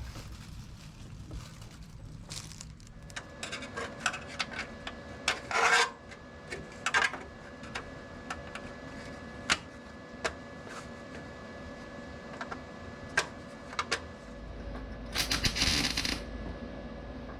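Metal clinks and taps from bodywork on a corroded car wheel arch, with short hissing bursts about five, seven and fifteen seconds in over a faint steady hum.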